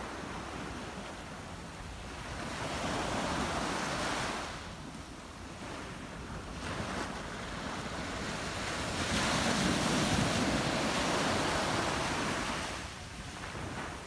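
Small ocean waves breaking and washing up a sandy beach, the surf noise swelling twice: briefly a few seconds in, and for longer past the middle.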